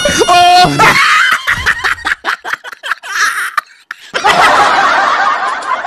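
Laughter: a loud pitched laugh in the first second, then quick short chuckling pulses, then a fuller stretch of laughing from about four seconds in.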